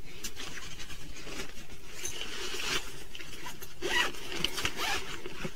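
Rustling and rubbing of a quilted fabric duffle bag and its straps being handled, with a few small clicks and a slightly louder rustle about four seconds in.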